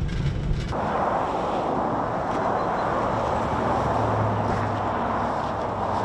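Road traffic passing on a highway: steady tyre noise, with a low engine hum from a passing vehicle about four seconds in. A low vehicle-cabin drone cuts off sharply in the first second.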